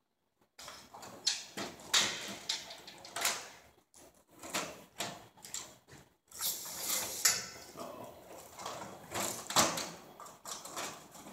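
Irregular clicks, knocks and scrapes of hands working a ceiling fluorescent fixture's metal housing and tubes as it is refitted with LED tubes.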